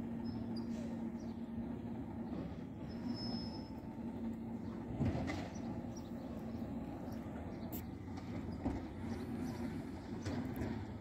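Distant garbage truck with an automated side loader running steadily, a low engine and hydraulic hum with a held tone, with a clunk about five seconds in.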